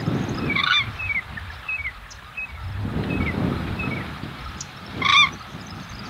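Birds calling outdoors: short falling chirps repeat every half second or so, with a louder, fuller call about a second in and again about five seconds in. A low rumble runs underneath.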